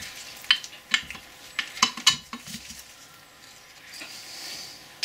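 Small steel parts clinking and clicking against the cast-iron apron housing of a Boxford lathe as they are fitted by hand, with several sharp clicks in the first half and a short, soft scraping sound about four seconds in.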